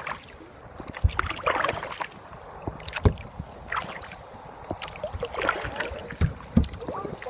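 Kayak paddle strokes in the water: irregular splashes and drips off the blades, with a few dull thumps.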